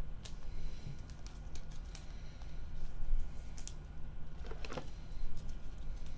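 Light clicks and taps of trading cards and plastic card holders being handled and set down on a table, over a low steady hum.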